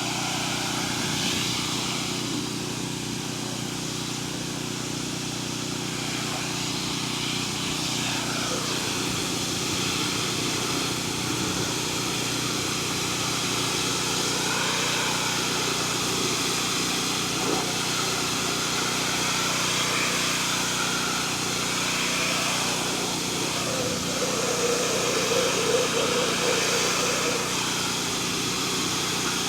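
Small petrol engine of a pressure-washing rig running steadily at constant speed, with the even hiss of water spraying.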